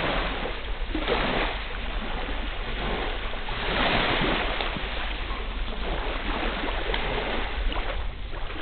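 Small waves washing onto a sandy shore: a steady hiss of surf that swells about a second in and again around four seconds in.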